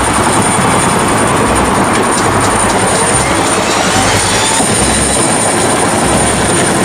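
Helicopter sound effect: a loud, steady rushing engine-and-rotor noise with a thin high whine above it.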